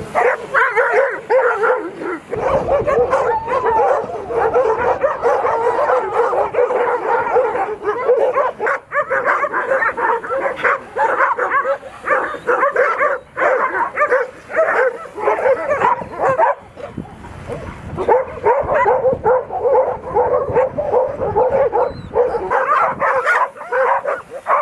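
A pack of stray dogs barking and yelping at once, many overlapping barks almost without pause, with a short lull a little past the middle. The dogs are worked up by a drone flying low over them.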